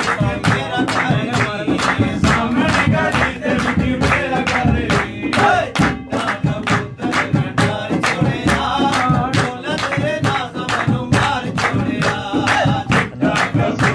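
Men singing a Saraiki folk song to a dholak hand drum and rhythmic hand-clapping, with sharp strokes about three times a second.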